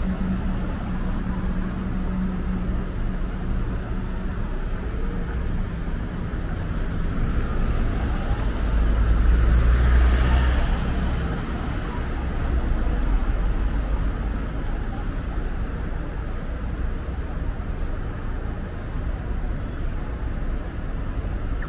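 City street traffic: engines and tyres running steadily, with one heavy vehicle passing close, louder for a few seconds around the middle.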